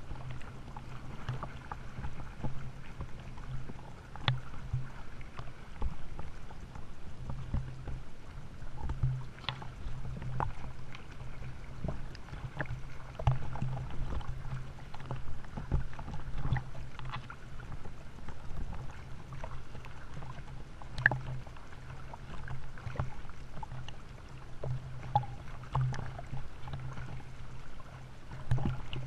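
Sea water sloshing and lapping against a waterproof camera riding at the surface, with irregular splashes from swimmers' strokes and kicks. A steady low hum runs underneath.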